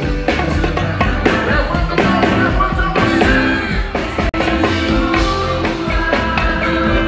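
Live band music with conga drums and a steady beat, with some singing over it. The sound drops out for an instant a little over four seconds in.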